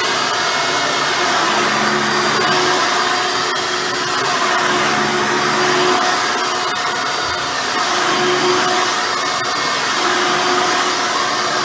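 Hoover Soft & Light Supreme vacuum cleaner with a 7-amp motor running steadily while cleaning. Its hum shifts slightly every second or two.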